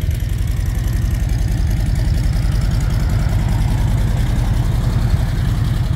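Harley-Davidson V-twin motorcycle engine idling steadily, with an even low beat.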